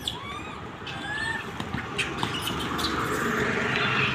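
A few short, high chirping calls over outdoor street noise, with scattered clicks. A hiss swells and grows louder toward the end.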